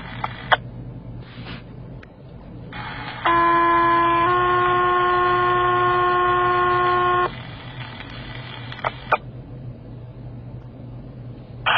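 Fire dispatch two-tone page through a mobile radio's speaker: open-channel hiss, then a first tone about a second long stepping to a slightly higher second tone held about three seconds. Hiss and a few squelch clicks follow.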